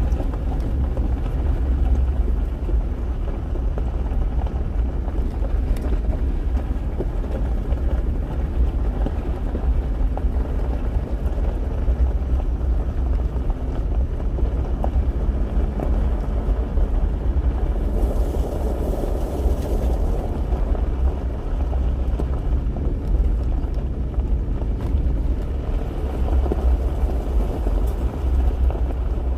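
Steady low rumble of a car driving, with wind noise.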